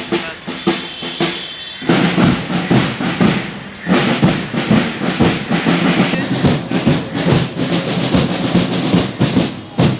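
Drums beating a fast, dense rhythm, with short breaks about two and four seconds in.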